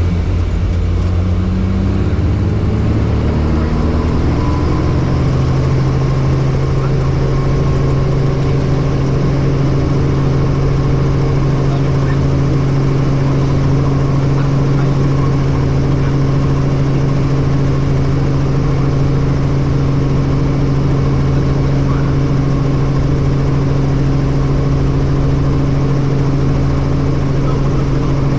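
Helicopter engine and rotor running, rising in pitch over the first few seconds and then holding a loud, steady drone.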